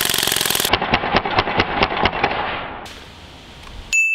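A Crosman DPMS SBR CO2 BB rifle firing a full-auto burst: very rapid shots for under a second, then a run of slower, duller pops that fade out over about two seconds. A single bright ding rings out near the end.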